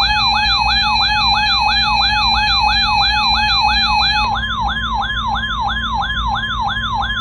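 Weather alert radio alarm: a loud siren-like yelp, rising and dropping about three times a second, over a steady alert tone that changes to a steady tone near 1 kHz about four seconds in. It announces an incoming weather warning broadcast.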